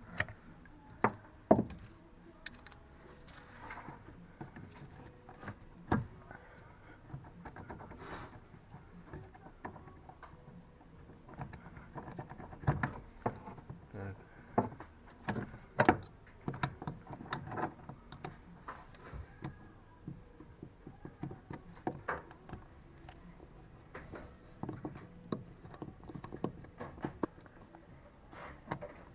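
Irregular clicks, knocks and clunks of hands and tools handling car parts, in scattered strokes with short pauses between them, the loudest around the middle.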